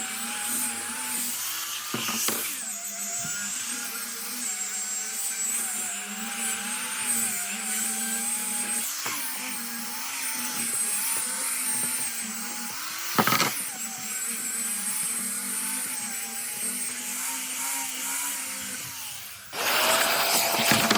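An electric power tool running steadily, its motor whine wavering slightly as it works, with two short knocks along the way. Near the end the sound changes to a louder, rougher run with a different steady whine.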